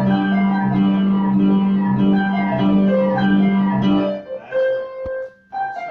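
White grand piano being played in a lesson: a steady stream of notes over a repeating low note. About four seconds in it falters into a few short stops and starts.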